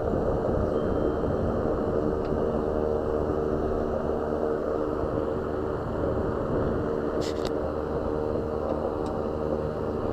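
BMW car running steadily, an even engine hum over road-like noise, with a brief click about seven seconds in.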